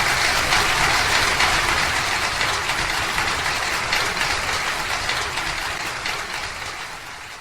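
Audience applauding, a dense clatter of clapping that slowly dies away near the end.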